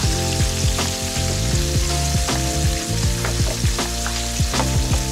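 Breaded fish pieces frying in a pan of hot oil: a steady sizzle with frequent irregular crackles and pops.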